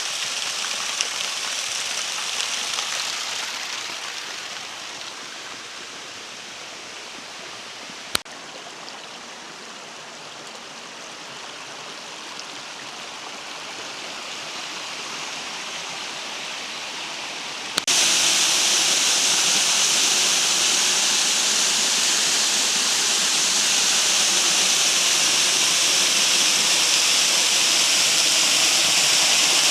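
Falling water of a waterfall rushing steadily. It grows quieter a few seconds in, with a single sharp click near the middle, then jumps abruptly to a louder, closer rush about two-thirds of the way through.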